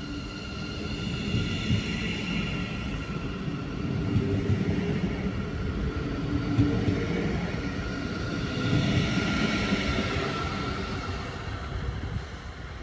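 Class 463 Siemens Mireo electric multiple unit running past along the platform, the rumble of its wheels on the rails under a whine from its electric traction drive that rises and falls.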